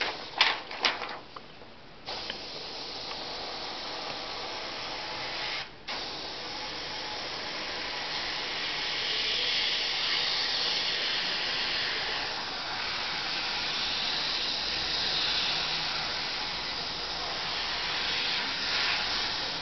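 An Iwata Revolution CR airbrush spraying, a steady hiss of air and paint that starts about two seconds in and cuts out for a moment near six seconds. A few light clicks of handling come just before it.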